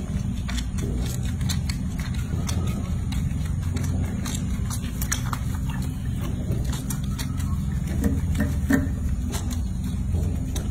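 A steady low motor hum, with scattered light clicks throughout.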